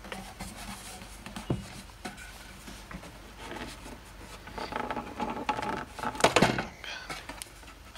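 Hands prying the bottom panel off an IKEA Eneby 30 speaker enclosure: irregular knocks and clicks of the case parts, a creak in the middle, and a loud sharp knock about six seconds in as the panel works loose.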